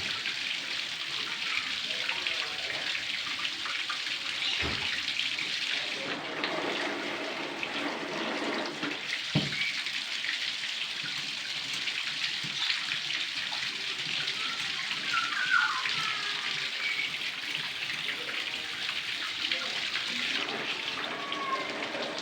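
Water running from a mains water tap: a steady rushing hiss, with two dull knocks about 4 and 9 seconds in.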